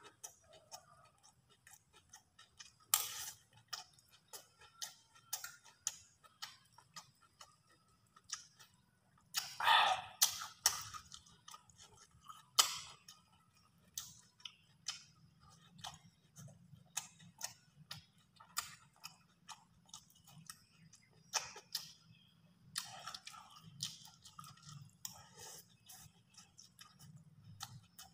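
Close-miked eating sounds: wet chewing and lip-smacking, broken by irregular sharp clicks of a metal spoon against a plate and rice bowl.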